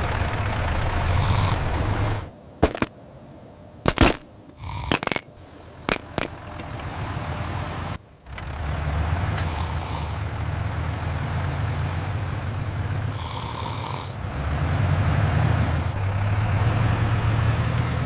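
Tractor engine running with a steady low hum. About two seconds in it drops away, and a quieter stretch follows with several sharp knocks and clicks. The engine hum returns at about eight seconds and carries on.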